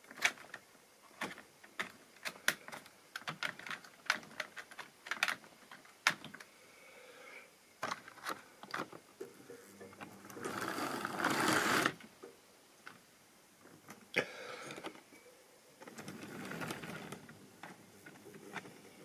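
Model railway rolling stock running on the layout: small wheels clicking over the rail joints and pointwork in irregular runs of ticks. A louder rushing rumble comes about ten seconds in, and a weaker one about sixteen seconds in.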